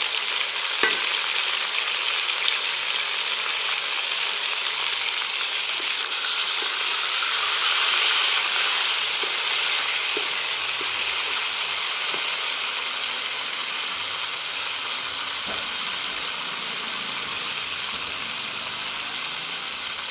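Chicken pieces frying in hot oil with onions, a steady sizzling hiss that swells for a few seconds around the middle, with a few faint clicks.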